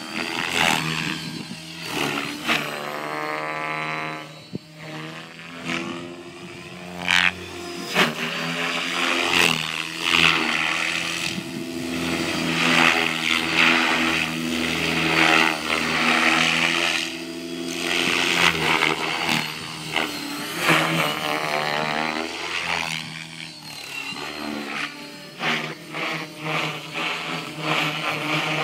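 Align T-REX 600E Pro electric RC helicopter in flight, sounding like a real helicopter: a continuous rotor drone and motor whine that rises and falls in pitch and loudness as it manoeuvres.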